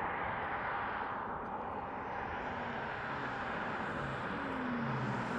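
A car approaching along the road over a steady hiss of wind and traffic. In the last second or so its drive note comes in, gliding up and down in pitch and growing louder as it nears.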